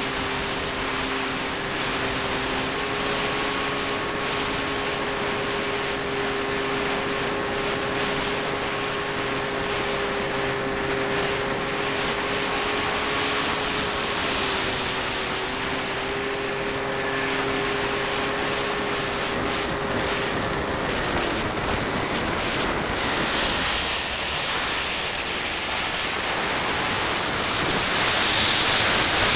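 Ares Gamma Pro RC floatplane's electric motor and propeller humming at a steady pitch, heard from the onboard camera with wind rushing over the microphone. About two-thirds of the way through, the motor tone sags and drops away, leaving only the wind rush, which grows louder near the end as the plane glides down toward the water.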